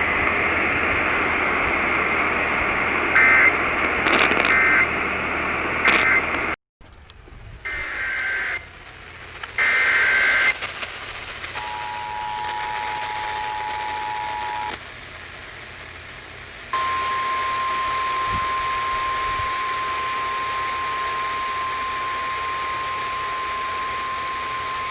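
Emergency Alert System signals received over radio with hiss. First come short bursts of warbling digital SAME data and a brief dropout. Then the two-tone attention signal sounds for about three seconds, and the steady single-tone NOAA Weather Radio alert tone runs for about nine seconds.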